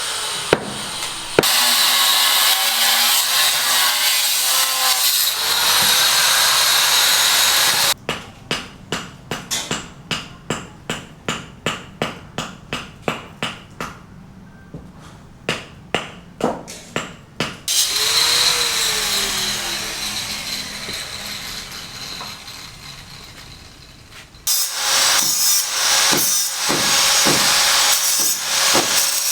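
Construction tool sounds in several abrupt cuts. There are stretches of steady sawing or power-tool noise, and runs of sharp, regular knocks about two a second.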